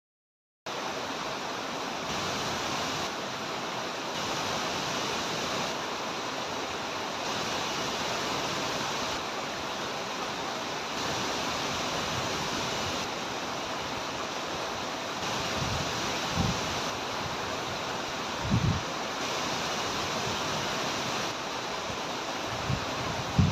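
Steady rushing of a tall waterfall, an even wash of falling water that starts after a brief silence. A few short low thumps come in the second half.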